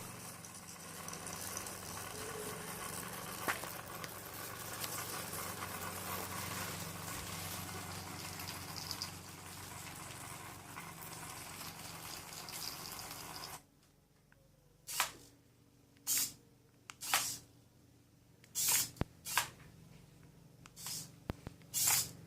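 Small electric drive motors of an Arduino-controlled model bulldozer (stepper motors and a servo) running steadily with a low hum and hiss, cutting off suddenly about halfway through. After that, seven short bursts of motor noise come a second or so apart, as the model is driven in brief moves.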